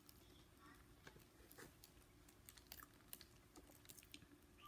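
Near silence: room tone with faint, scattered small clicks.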